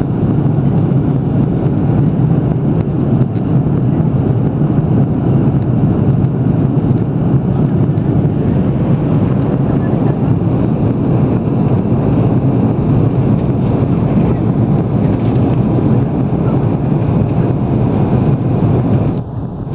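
Steady low cabin roar of an Airbus A330-300 in its climb after takeoff: engine noise and rushing airflow heard inside the cabin at a window seat over the wing. It dips briefly near the end.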